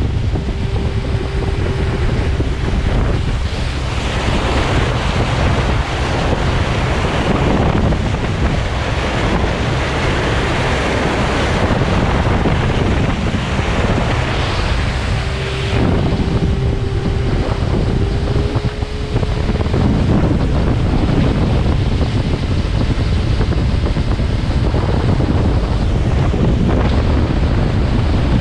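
Motorboat running at speed: wind buffeting the microphone over the rush and splash of the wake. A thin steady whine comes through for a few seconds near the start and again about halfway, rising slightly just before it stops.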